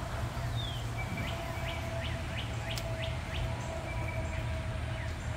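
Wild birds singing: one bird gives a quick run of short, sharp, falling notes, about three a second, from about a second in for a couple of seconds, over a steady low rumble.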